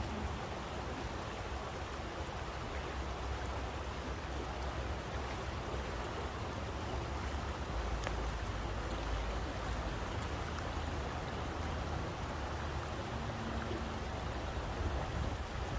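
Steady rushing water, an even hiss with a low rumble underneath and no distinct events.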